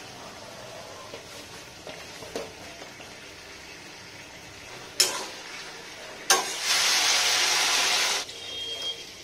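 Green banana and potato pieces frying gently in hot oil in a kadai, with light scrapes of a spatula. About five seconds in come two sharp metal knocks, then water poured into the hot pan hisses loudly for about a second and a half before settling to a softer bubbling.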